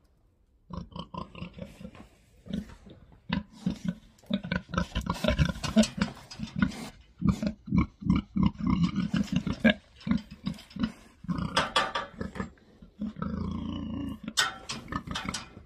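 Pigs grunting: quick runs of short, low grunts, with a longer drawn-out grunt and then a sharper one near the end.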